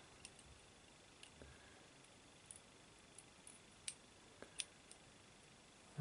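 Near silence with a few faint, irregular clicks of a lock pick and tension tool working the pins inside an ISEO euro cylinder; two slightly louder clicks come about four seconds in.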